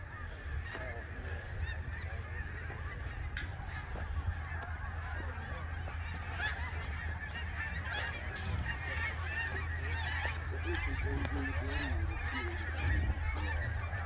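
A flock of birds calling, many short calls overlapping and repeating without a break, over a steady low rumble.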